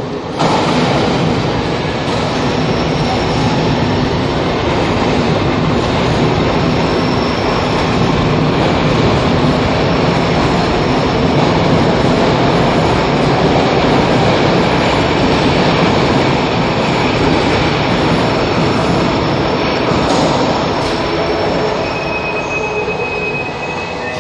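Train running on rails, a loud steady rumble with thin high wheel squeal over it.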